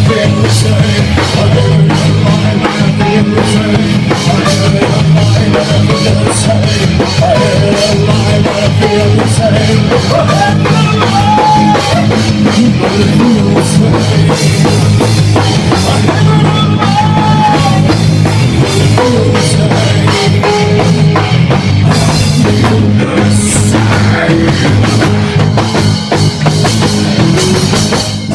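Gothic rock band playing live: loud distorted guitars, bass and a drum kit hammering out a steady beat, with a lead line gliding in pitch over it. Dense and unpolished, as heard live in a small room.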